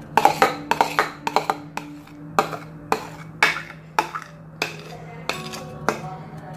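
A spatula knocking and scraping against the rims of a bowl and a plastic tub while thick ice cream mixture is scooped across. The knocks come quickly and irregularly.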